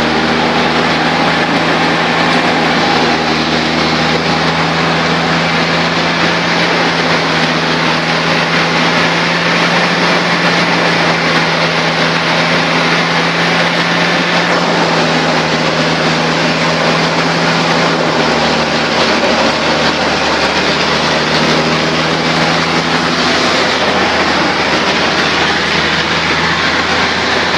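Coconut husk fibre decorticating machine running on test: a loud, steady mechanical hum under a dense, noisy rush. The hum falters for a few seconds about two-thirds of the way through, then steadies again.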